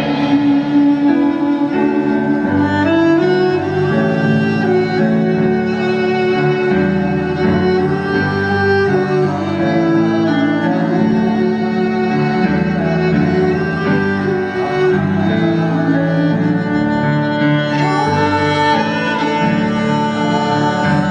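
Violin playing a melody over electric keyboard accompaniment in an instrumental passage of a song.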